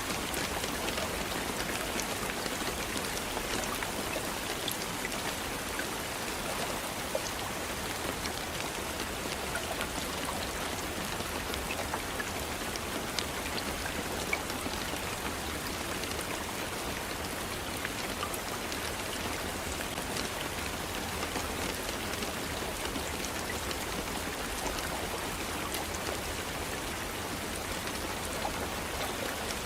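Steady rain falling, a dense even hiss with scattered individual drops ticking on a surface.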